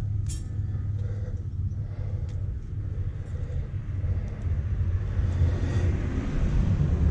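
Steady low rumble with a sharp click early on and light rustling and crinkling from hands wrapping electrical tape around a wire splice. The rustling grows louder about five seconds in.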